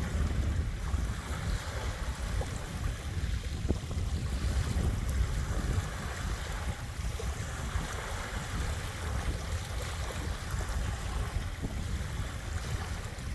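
Small waves washing onto the shore at ebb tide, swelling a little in the middle, over a steady low rumble of wind on the microphone.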